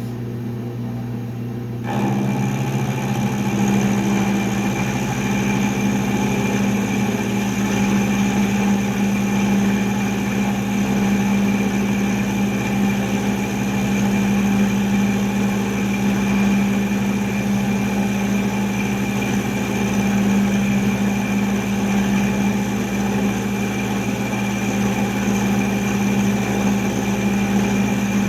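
Milling machine running with its end mill cutting a V groove into a metal block. The sound steps up louder and harsher about two seconds in, then runs steadily over the motor's hum.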